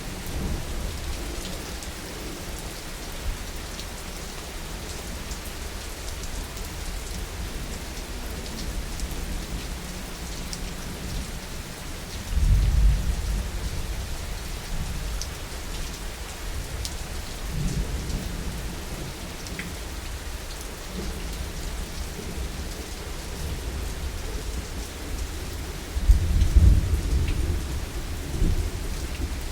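Steady heavy rain with fine drips pattering on a surface, and deep thunder rumbling now and then: a low roll about twelve seconds in, a softer one a few seconds later, and the loudest rumble near the end.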